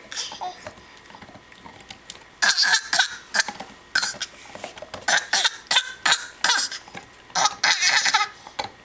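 A young child imitating a duck: a quick run of short quacking calls starting about two seconds in, a funny noise.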